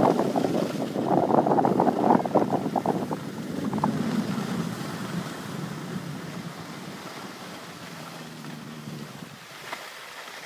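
Skis sliding and scraping over packed snow, with wind buffeting the microphone. The noise is roughest and loudest in the first three seconds, then fades steadily as the skiing slows.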